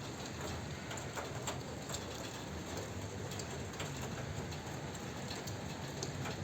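Heavy rain falling steadily, with scattered sharp ticks of drops and splashes.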